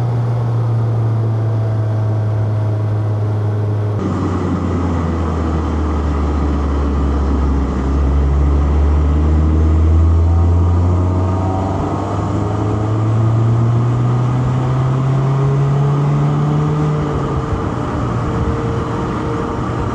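Four-cylinder car engine under way. It holds steady revs, drops in pitch about four seconds in, then climbs through the revs under acceleration and falls sharply near the end at a gear change, with tyre and road noise underneath.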